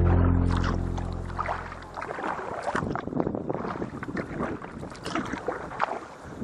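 A music track fades out over about the first two seconds, then kayak paddling takes over: irregular paddle splashes and water lapping around the hull, with wind on the microphone.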